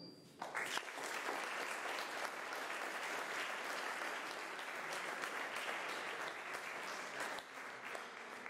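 Audience applause in a hall, breaking out about half a second in and tapering off near the end.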